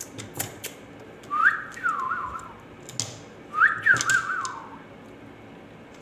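A whistled phrase heard twice, each a quick rise followed by a wavering, falling trill, with scattered light clicks and taps around it.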